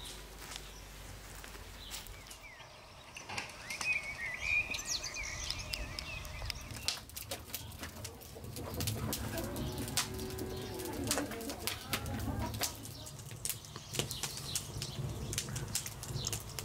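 Wood fire burning in a clay tandoor, a low fluttering rumble with sharp crackles and pops, with birds chirping and a low cooing call in the middle.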